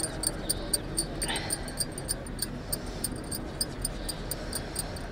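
Insect chirping steadily in short, high chirps, about four a second, with one brief different call about a second in.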